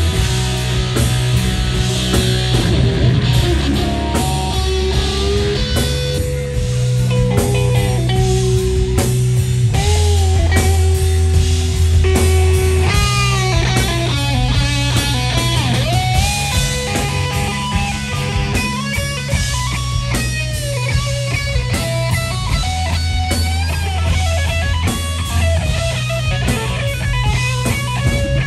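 Live rock band: an electric guitar plays a lead line of held notes that bend and waver in pitch, over heavy bass and drums.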